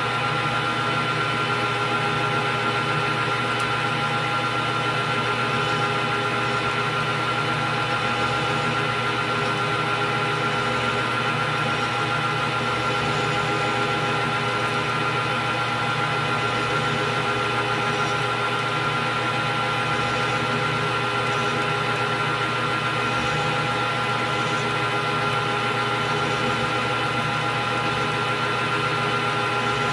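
Metal lathe running at a steady speed, a constant motor and gear whine over a low hum, while the tool takes a light facing cut on the end of a small 1215 steel screw.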